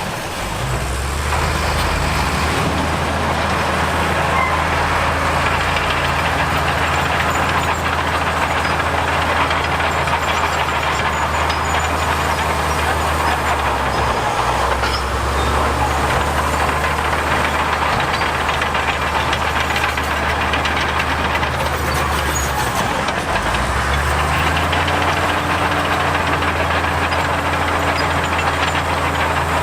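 Diesel engine of heavy earthmoving machinery running steadily under work. Its low note drops out briefly about halfway and again a few seconds before the end, then picks up.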